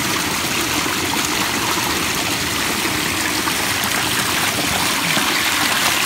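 Pumped water of a pondless backyard waterfall spilling over stacked rocks and running down through river pebbles: a steady splashing and trickling.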